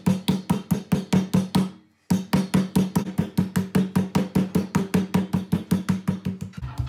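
A flat steel meat pounder beating a cloth-wrapped beef tenderloin on a wooden cutting board to flatten it: rapid, even blows at about six a second, each thudding with a short ringing tone, with a brief pause about two seconds in.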